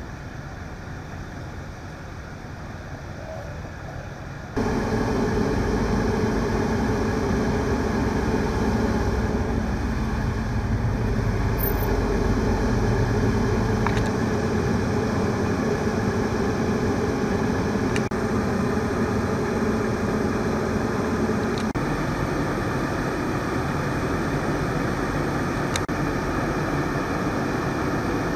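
Emergency vehicle engines idling steadily, a constant low hum that gets markedly louder about four and a half seconds in.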